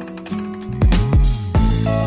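Background music: held synth-like chords with heavy drum hits and deep bass notes that slide downward, starting about a second in.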